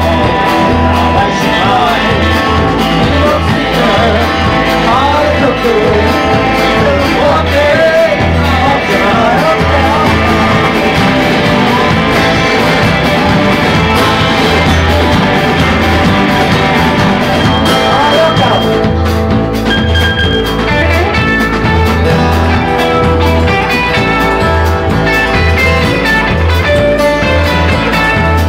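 Live band playing a blues-rock song: guitar and singing over a steady, rhythmic bass beat, with the voice more prominent in the first part and guitar lines carrying the later part.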